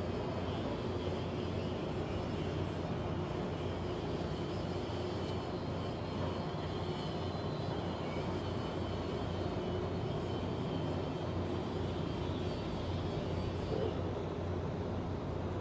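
Steady mechanical drone of shipyard machinery or engines, with a low hum and faint high steady whine, unchanging throughout.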